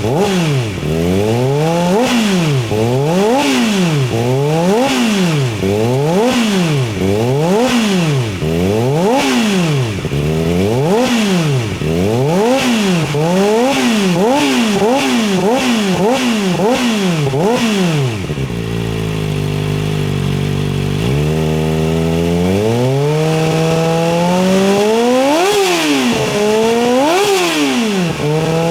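Kawasaki ZX-4R's inline-four engine through a titanium 4-1 full exhaust, revved in quick repeated blips about once a second. About 18 seconds in it drops to a steady idle for a few seconds, then revs climb again in longer, higher sweeps.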